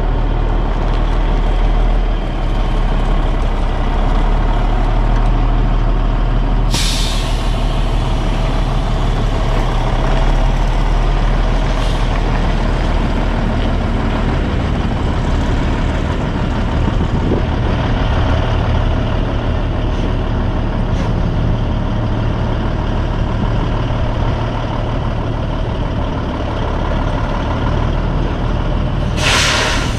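Kenworth T800 semi tractor's diesel engine running at low speed while it backs a 53-foot trailer into a loading dock. Two short, sharp air-brake hisses cut through, about seven seconds in and again near the end.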